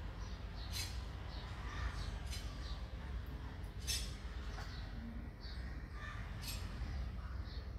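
Birds calling: several short calls a second or two apart over a steady low background rumble.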